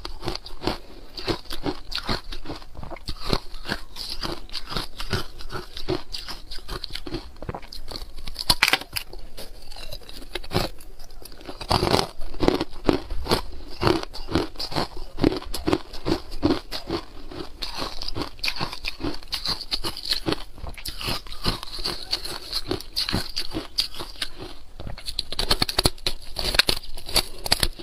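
Close-miked crunching and chewing of carbonated ice cubes: a dense, continuous run of sharp cracks and crackles as the ice is bitten and ground between the teeth.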